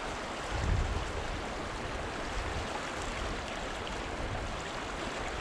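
Flowing river water: a steady, even wash of the current.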